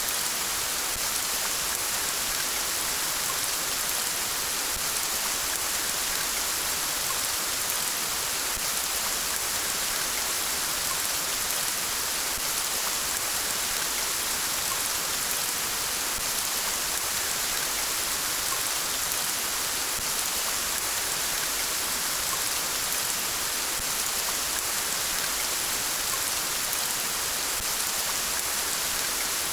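Steady rain falling, an even hiss of many drops with fine pattering of individual drops on surfaces.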